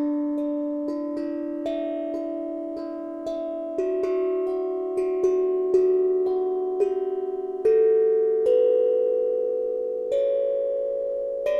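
Harmonic Star 11-note steel tongue drum struck with rubber mallets, a note at a time. Each note rings on under the next, and the notes step gradually higher in pitch.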